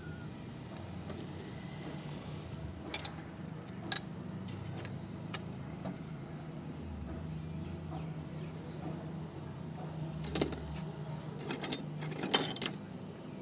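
Metal tools clinking and being handled: single sharp clicks about three and four seconds in, then a cluster of clinks near the end, over a steady low hum.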